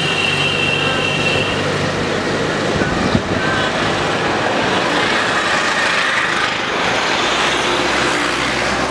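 Street traffic noise from passing road vehicles, running steadily, with a high steady tone for the first second and a half and a single sharp knock about three seconds in.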